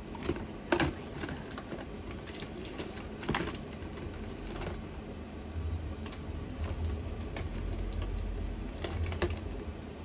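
Scattered light clicks and knocks of small objects being handled, as in rummaging for art supplies. The loudest clicks fall near the start, about three seconds in, and near the end, with a low rumble through the second half.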